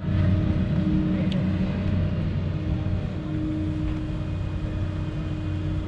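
Engine running steadily: an even, low drone with a constant hum.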